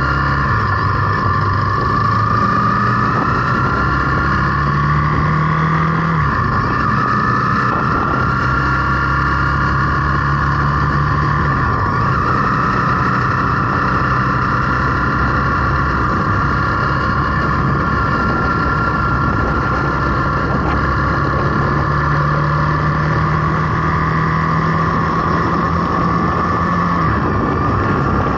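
Zontes T350 motorcycle's single-cylinder engine running under way, with wind noise on the microphone. The engine note steps down about six seconds in and again about twelve seconds in, then rises and drops once more near the end.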